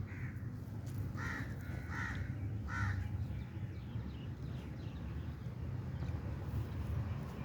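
A crow cawing four times in the first three seconds, over a steady low rumble.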